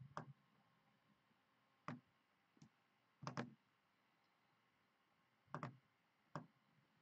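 Computer mouse clicking a handful of times, spaced out with a couple of quick double clicks, against near silence.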